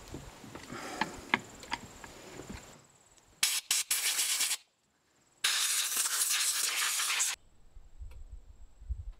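Small clicks and knocks of chainsaw parts and hand tools being handled, then two loud bursts of hiss that start and stop abruptly with a short silence between them. Near the end, a low rumble of liquid being poured into the saw from a plastic bottle.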